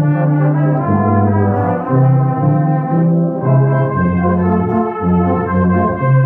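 Small brass band with cornets and tuba playing a slow piece in sustained chords, the bass notes changing about once a second.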